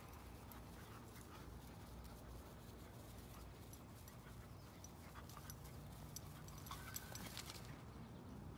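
Faint sounds of a Whippet puppy and a Vizsla puppy running and playing on grass: soft paw footfalls and light scuffs over a low outdoor hiss.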